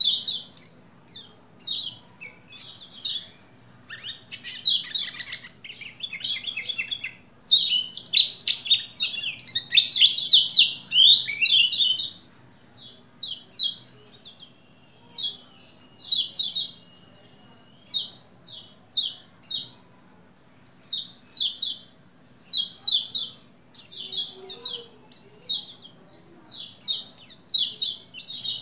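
Male Lombok white-eye (pleci, kecial kuning) chirping and singing in quick, high chirp phrases about once a second, with a longer, denser run of song about eight to twelve seconds in.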